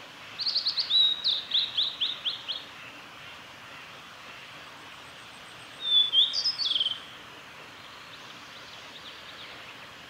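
Male blue-and-white flycatcher singing: two phrases of clear, high whistled notes run into quick descending notes, the first about two seconds long just after the start, the second about a second long some six seconds in.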